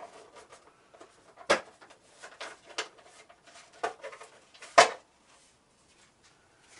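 A few sharp clicks and knocks as a motorcycle side shroud panel is worked free of its plastic retaining tangs. The loudest come about a second and a half in and just before five seconds, as the panel pops off.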